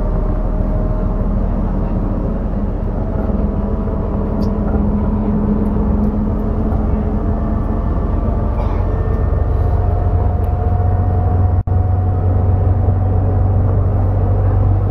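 Steady low drone of a sleeper bus's engine and road noise heard inside the passenger cabin, with engine tones drifting slightly in pitch. The sound cuts out for an instant about two-thirds of the way through.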